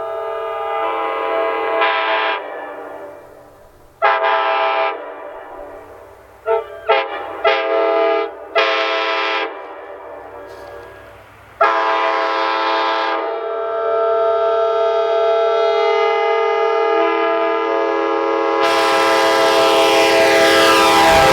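Multi-chime train air horn sounding a chord of several tones at once: a long blast, a run of four or five short blasts, then a long held blast. A loud hiss of air joins the last blast near the end.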